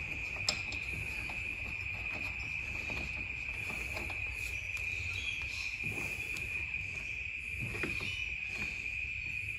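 Steady high-pitched chirring of insects, with a few faint clicks and taps from pliers and a decompression valve being screwed into a two-stroke mower engine; one click about half a second in is sharper.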